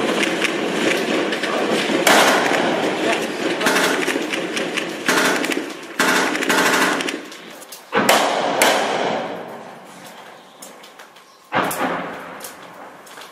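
Automatic small-arms gunfire in rapid, dense bursts for the first half, then two sharp reports about eight and eleven and a half seconds in, each trailing off in a long echo.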